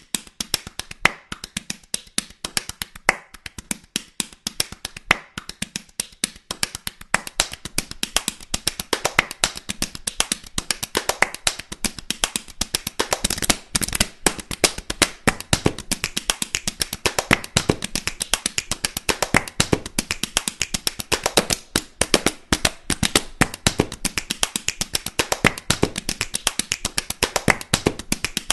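A rapid, unbroken run of light taps and clicks, several a second.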